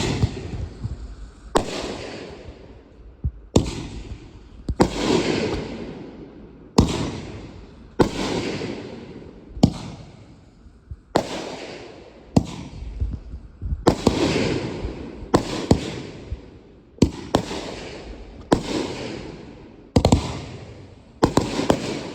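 Aerial consumer fireworks going off one after another: about sixteen sharp bangs, one every second or so, each followed by a crackle that fades away.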